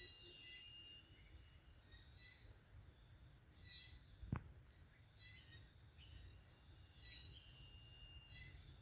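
Faint outdoor background: groups of small, high bird chirps recurring every second or two over a steady high-pitched insect-like whine and low rumble, with one sharp tap a little past the middle.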